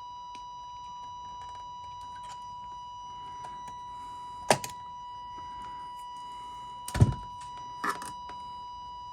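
A steady, buzzy test tone runs throughout, from a signal fed through a signal tracer that is not amplifying correctly. Over it come a few sharp clicks and knocks from probes and hands handling the circuit board, the loudest about seven seconds in.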